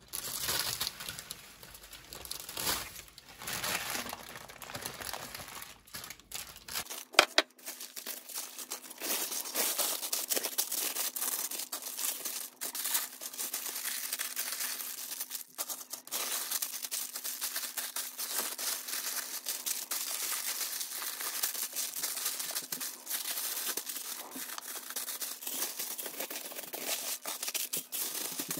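Baking paper and then aluminium foil crinkling as they are folded and pressed down by gloved hands, with one sharp click about seven seconds in.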